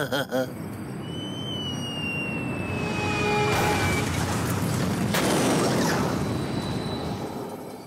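Cartoon sound effect of an alien spaceship taking off and flying away: a steady rumbling whoosh with a thin whine falling slowly in pitch, swelling louder about five seconds in before fading.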